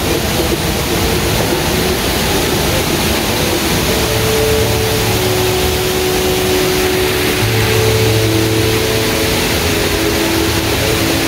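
Steady rush of the Rain Vortex, the tall indoor waterfall at Jewel Changi Airport, pouring into its basin, with music of long held notes playing over it.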